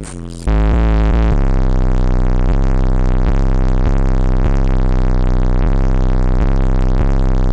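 Loud, bass-heavy synthesizer music played through a car's subwoofers, with a steady beat a little under a second apart. It cuts in abruptly about half a second in.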